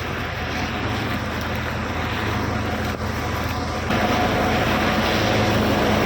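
Tractor-driven wheat threshing machine running steadily: an engine hum under a dense rushing noise. The sound steps up and gets louder about four seconds in.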